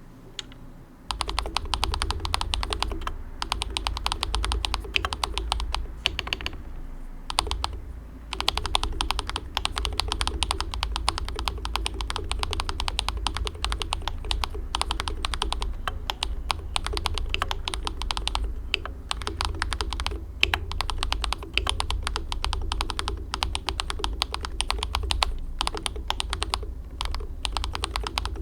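Fast, continuous typing on a DAREU COOL68 8K magnetic-switch keyboard, starting about a second in with a short pause near seven seconds. The keystrokes are crisp, like water drops, and the spacebar has a slightly hollow ring from the case.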